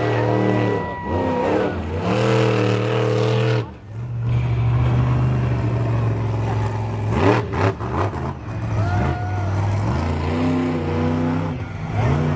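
Monster truck engine running hard under throttle, revving up and easing off. The sound drops away briefly about four seconds in, then comes back. There are quick up-and-down revs a few seconds later.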